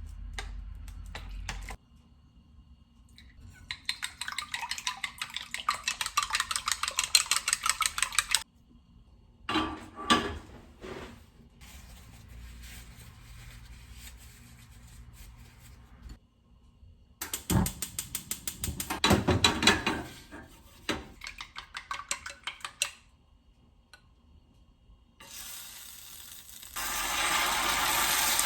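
Kitchen utensil work: a utensil beats rapidly and evenly against a bowl for several seconds, as in whisking or stirring. Then come scattered clatters and clinks of dishes and cutlery, and near the end a steady rushing hiss starts.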